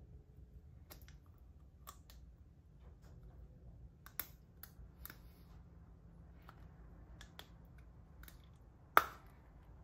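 Scattered light clicks and taps, spaced irregularly, with one sharper, louder knock near the end.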